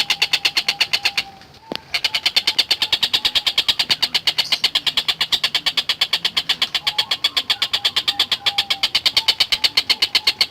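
Tengkek buto kingfisher calling in a fast, even rattle of sharp notes, about ten a second. It breaks off briefly about a second and a half in, then carries on.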